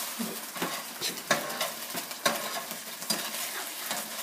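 Garlic and oyster sauce sizzling in a frying pan while a utensil stirs, scrapes and knocks against the pan, with a few sharper knocks, the loudest about one and two seconds in.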